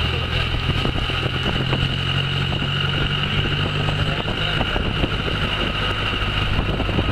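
Engine of a moving vehicle running steadily, heard from the cab through an open window, with road and wind noise and a steady high whine over it.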